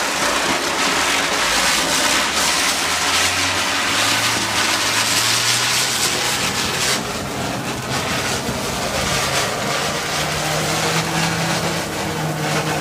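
Cock brand 45 cm ground chakkar (ground spinner firework) burning as it spins on the ground: a loud, steady hiss of spraying sparks, with a low hum underneath that rises in pitch as the spin speeds up.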